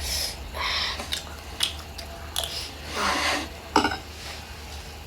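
Close-up biting and chewing of a chewy, tough piece of grilled rib, in a run of irregular mouth noises with a couple of sharp clicks.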